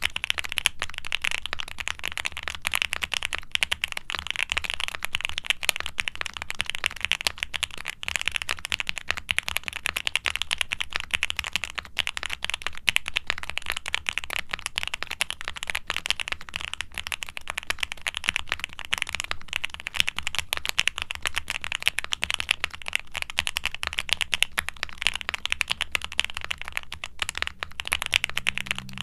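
QwertyKeys QK65 mechanical keyboard with full-POM Kailh Cream Pro switches on a polycarbonate plate, typed on quickly and without pause: a dense, continuous stream of key clacks. The board's sound is somewhat thocky but a bit muddled and rattly.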